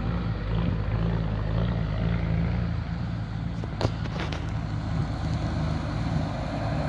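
Off-road 4x4 engines running at low revs, a steady low drone, as the vehicles creep across rough ground. Two short knocks come a little under four seconds in.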